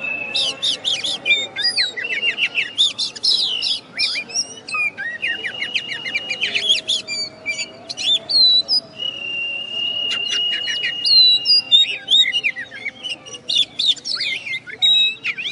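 A male Oriental magpie-robin singing a loud, varied song of quick sweeping notes and rapid trills, broken three times by a long steady whistle.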